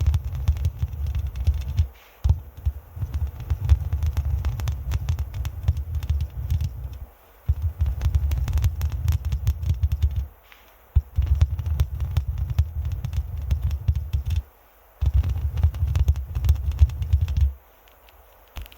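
A microphone being scratched and rubbed at close range, in about five stretches of a few seconds each with short pauses between: a deep rubbing noise dotted with many crisp scratchy crackles.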